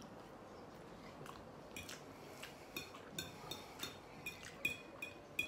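Faint chewing, then a metal fork clinking and scraping against the plate while twirling spaghetti: about a dozen light, ringing clinks, roughly three a second, starting about two seconds in.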